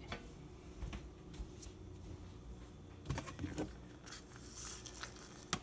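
A few faint knocks and taps of a square plastic food-storage container being picked up and tipped over, with one sharp click near the end.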